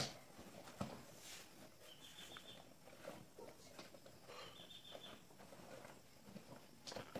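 Quiet handling of a tripod in its soft nylon carry bag: scattered rustles and light knocks as it is pulled out. A short high chirp sounds twice in the background.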